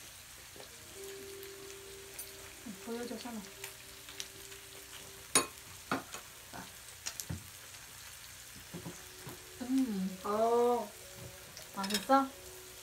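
Beef, lamb and duck meat sizzling on a grill pan over a tabletop burner, a faint steady hiss. A few sharp clicks of utensils in the middle, and short bits of voice about two-thirds of the way through and near the end.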